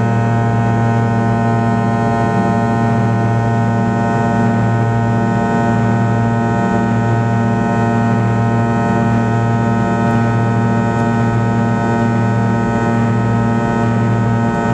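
Cabin drone of a Fokker 100 climbing after takeoff: its rear-mounted Rolls-Royce Tay turbofans run at climb power, a steady loud hum made of many steady tones.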